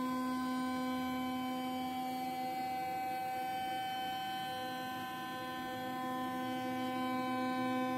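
Spindle of a homemade CNC router table running with a steady, even whine while milling out parts from a sheet of HDPE plastic.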